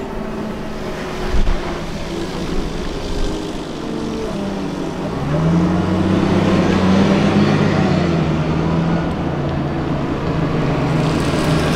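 Piranha 5 eight-wheeled armoured personnel carrier's diesel engine running as it drives away. About five seconds in, the engine note rises in pitch, levels off and stays louder.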